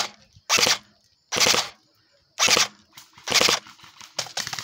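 Airsoft gun fired in short full-auto bursts: about five bursts of a third of a second each, roughly one a second. They are followed near the end by a rapid scatter of small clicks.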